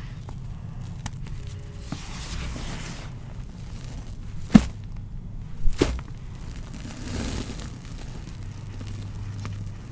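Gloved hands scooping and squeezing soft powdered gym chalk, with soft crumbling and rustling of the powder. Two sharp knocks, a little over a second apart, come near the middle, over a steady low hum.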